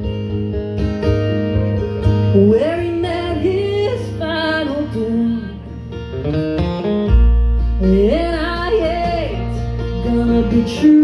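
Live bluegrass string band playing: strummed acoustic guitar and upright bass under a wavering melodic lead line. A deep, held bass note comes in about seven seconds in.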